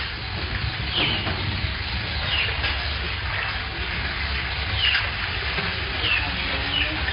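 A small bird chirping: short high chirps, each falling in pitch, a few seconds apart, over a steady low rumble.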